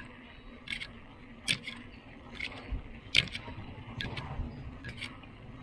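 A bicycle rattling and clicking as it rides over a concrete road, with sharp clicks at irregular intervals of about half a second to a second.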